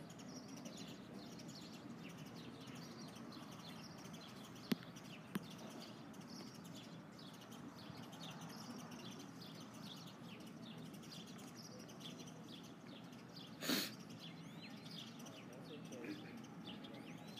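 Faint steady hiss with light scratchy strokes throughout, two sharp clicks about five seconds in, and a short burst of noise near the end.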